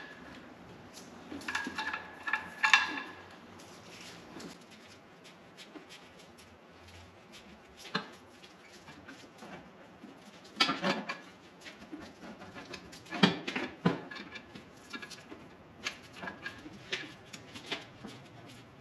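Metal tools and car parts clinking and clanking in short clusters, some strikes ringing briefly: a group of clinks about two seconds in, then a single clank, then louder clanks in the middle and a few lighter taps toward the end.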